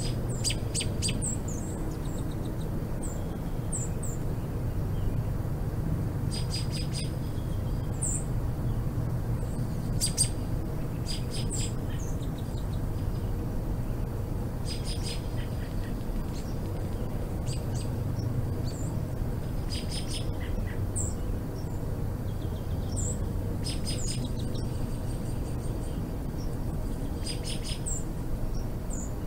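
Small birds chirping: short high notes and quick rattling runs of notes every few seconds, over a steady low background hum.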